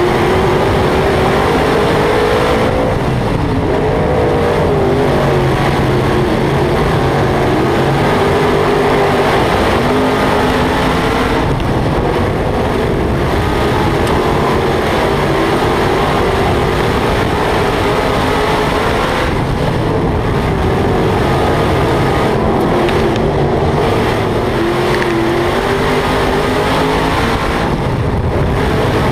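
Dirt modified race car's V8 engine heard on board at racing speed, running loud and steady. Its pitch dips and climbs again four times, about every eight seconds, as the car lifts for the turns and accelerates down the straights.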